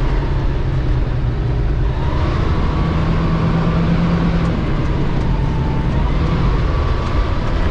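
Fire truck engine running under load as the truck crawls over rough dirt ground, heard from inside the cab as a steady drone that swells slightly about three seconds in.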